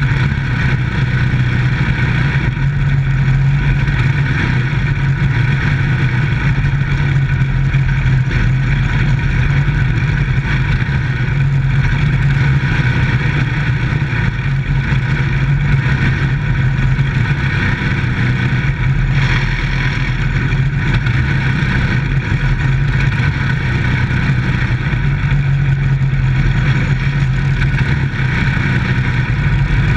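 Micro stock dirt-track race car's engine running hard and fairly steadily as the car laps, heard from inside the cockpit, with small rises and dips in pitch.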